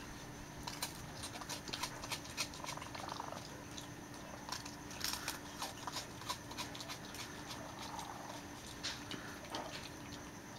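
Raccoons eating crackers: irregular crisp crunches and clicks as the crackers are chewed.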